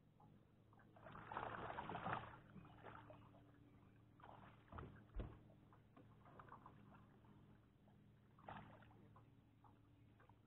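Water sloshing and lapping against a small boat, with a louder rush of water about a second in and a single thump about five seconds in, over a faint steady hum.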